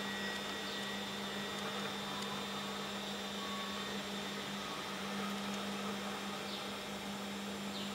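Steady low electrical hum over an even background hiss, with no chiming or ticking from the watch.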